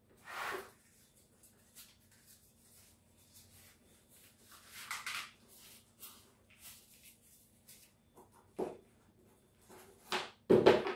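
Corrugated cardboard rustling and scraping as a strip is rolled into a tight coil and pushed into a small metal tin, followed by a few knocks on the wooden table near the end, the loudest just before it ends.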